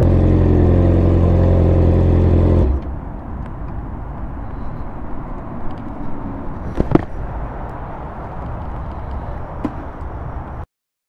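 Yamaha R6 inline-four engine idling steadily, then cutting off abruptly a little under three seconds in. Quieter background noise follows, with a sharp knock around seven seconds.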